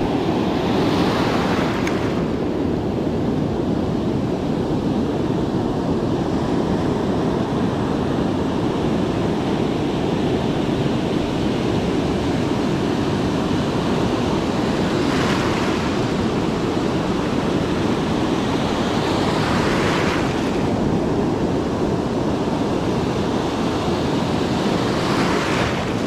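Ocean surf breaking and washing up a sandy beach, a steady rumble, with the hiss of a wave rushing in four times.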